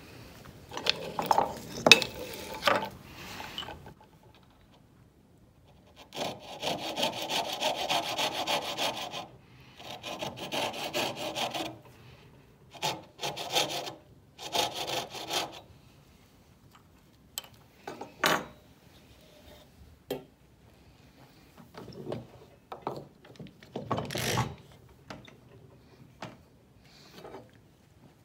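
Coping saw cutting a shallow kerf into a small pale wooden piece clamped in a bench vise, in several bursts of quick, even strokes. A few sharp knocks come before the sawing starts, and scattered short knocks follow it.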